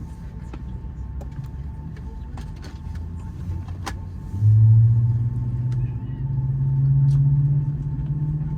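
Low machinery drone heard inside an Airbus A330-300 cabin during pushback and engine start: a loud hum comes in suddenly about four and a half seconds in and slowly rises in pitch, over a steady rumble and a faint high whine.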